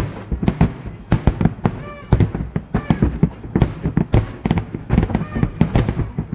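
Fireworks display: dense, irregular bangs and cracks of bursting shells, several a second, with deep booms underneath.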